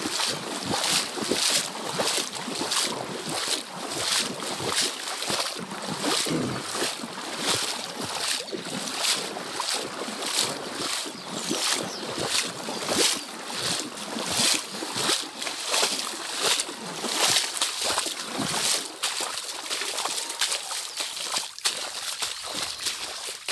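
Footsteps wading through floodwater, a splash and slosh with each stride at a steady pace of about two strides a second, growing fainter near the end.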